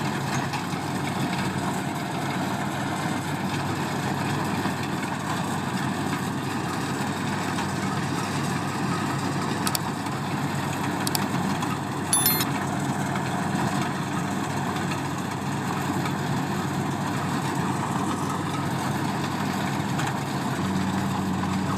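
Engine of a farm machine running steadily at a low, even speed, with a few brief sharp clicks about halfway through.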